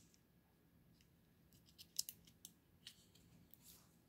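Near silence with a few faint clicks and scrapes from a LiPo battery pack being handled and pressed into its plastic case, most of them a little before halfway through.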